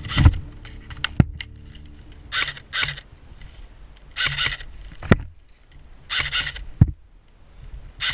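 Short rustling and crunching sounds, often in pairs, from an airsoft player's gear and movement on dry leaves and stony ground. A few sharp clicks cut through about a second in, after about five seconds and near the end.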